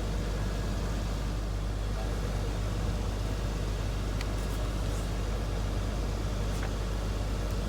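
Steady low hum of an idling engine, with a few faint light clicks.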